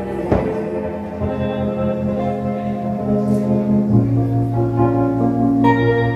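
Electronic keyboard playing sustained organ-like chords in an instrumental passage, changing to a new, fuller chord about four seconds in.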